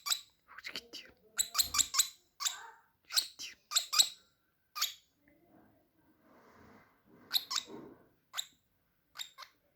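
Small bird giving runs of short, sharp chirps, with a quieter rustling stretch in the middle.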